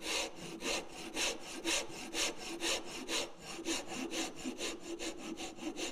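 Cabinet rasp filing the wooden jaw of a cam clamp in repeated strokes, about two a second, paring the shaped profile down smooth.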